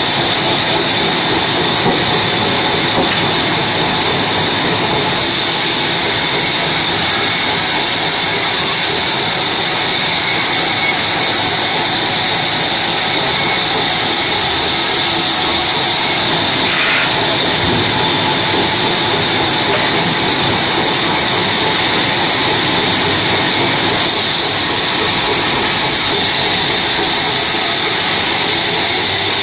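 A large vertical band saw cutting a teak log as it is fed past the blade. It makes a loud, steady hiss that never breaks.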